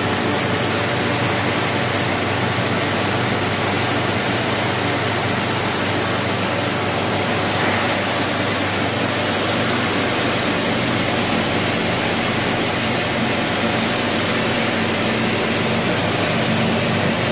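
Lithium battery recycling line machinery running: a loud, steady, even noise with a low hum from the motors underneath.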